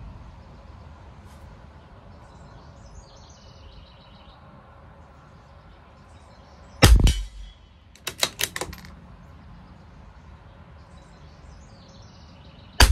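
A CZ 457 LRP bolt-action .22 LR rifle fires one sharp shot about seven seconds in, followed about a second later by a quick run of metallic clicks as the bolt is worked to chamber the next round. A second shot goes off at the very end.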